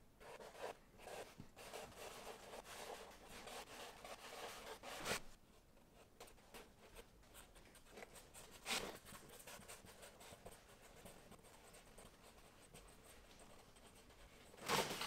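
Faint rubbing of cardboard against cardboard, then a marker pen scratching over cardboard in short strokes, with a couple of sharp taps.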